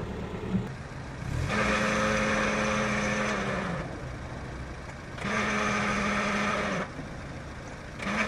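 Car engine idling with a steady whine that has a rough edge, from a damaged clutch pilot bearing. The whine comes in three times as the clutch pedal is pressed, for about two seconds, then about a second and a half, then again near the end, and drops away between.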